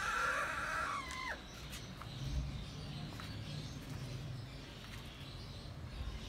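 A rooster crowing: the crow is already under way, holds its note, then falls off and ends about a second in. After it come a few faint clicks over a low background rumble.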